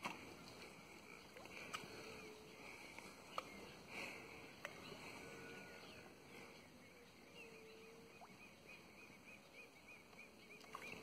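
Near silence: faint outdoor ambience on calm water, with a few soft clicks in the first half and, in the second half, a faint bird chirping in a quick even series of short high notes, about three a second.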